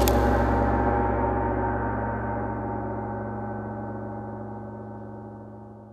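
The final struck chord of a heavy rock music track ringing out and slowly dying away over several seconds, its higher notes fading first.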